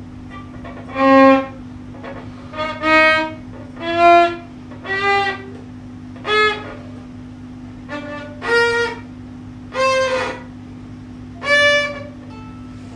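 Solo violin played one bowed note at a time, some nine or ten short notes with pauses between them, stepping up in pitch overall.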